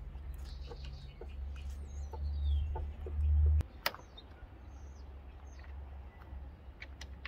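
Hands refitting screws among engine parts: small scattered metal clicks and taps, with one sharp click about halfway in. A low rumble swells through the first half and stops abruptly, and birds call faintly in the background.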